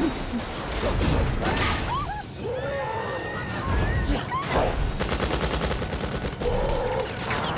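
Film soundtrack of a panicked crowd screaming over a dense, continuous din of crashing and low rumbling.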